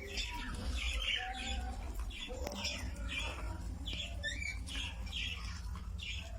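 Budgerigars chirping and chattering: a quick run of short, high calls and warbles, several a second, over a low steady hum.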